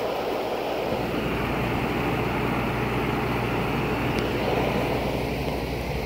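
Goodman 4-ton package heat pump running: the steady rush of the condenser fan over a low compressor hum, the hum growing stronger about a second in.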